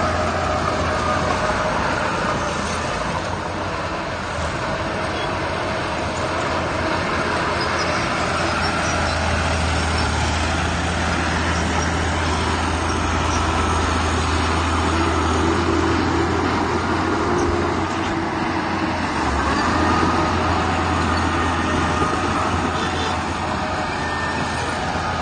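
Heavy diesel earthmoving machinery running steadily: a constant low engine drone with fainter, steady higher tones over it.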